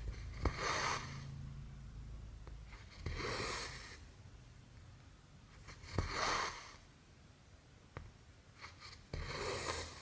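Cotton embroidery thread being pulled through cross-stitch fabric: four short swishes about three seconds apart, with a few small ticks in between.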